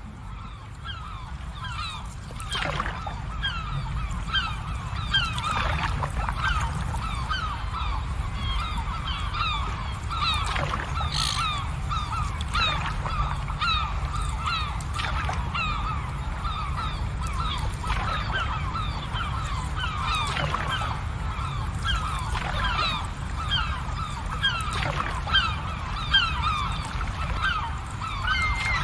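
A large flock of birds calling continuously, many short falling calls overlapping one another, over a low steady rumble.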